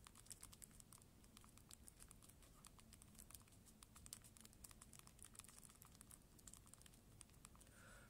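Faint, rapid clicks of thumbs typing on the Unihertz Titan Pocket's physical QWERTY keyboard, several keypresses a second in an uneven stream.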